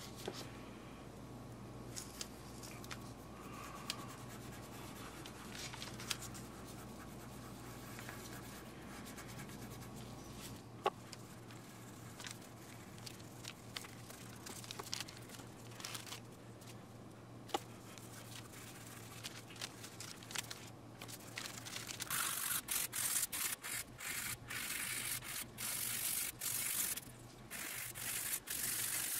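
Faint rubbing and small clicks from hands working a wooden piece, then about two-thirds of the way through a hand file starts rasping across a white oak saxophone mouthpiece in quick, repeated strokes, the loudest sound.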